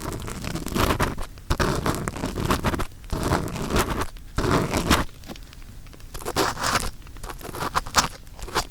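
Close-up ear-cleaning sounds in the silicone ear of a 3Dio binaural microphone: uneven scraping and rustling with many small clicks.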